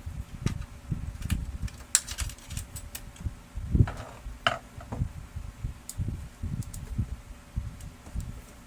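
Irregular light knocks and sharp clicks from hands working on the printer's parts, over a faint steady hum.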